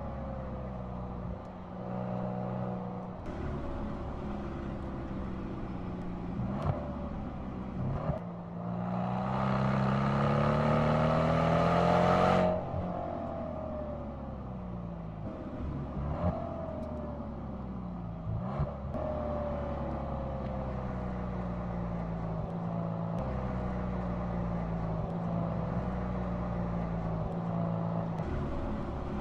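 Mercedes-AMG C63 S Coupe's twin-turbo V8 driving hard through the gears, its pitch climbing and dropping with brief breaks at the shifts; loudest about nine to twelve seconds in, as it revs up.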